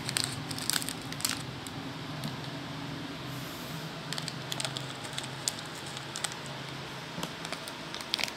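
Scattered light clicks and rustles of fingers handling a small plastic packet and sprinkling tiny candy sprinkles onto a Popin' Cookin' candy, over a low steady hum.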